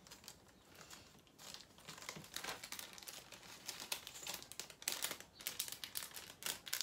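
Small clear plastic zip bag crinkling as it is handled in the hands, a rapid, irregular crackling that starts about a second and a half in.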